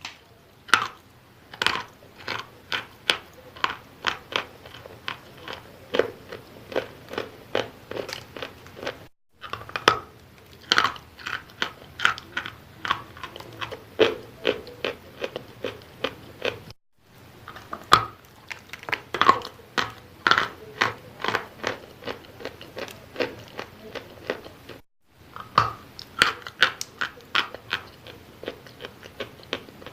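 Wet chalk being bitten and chewed close to the microphone: a steady run of short crunches, about two a second. The sound cuts out completely for a moment three times.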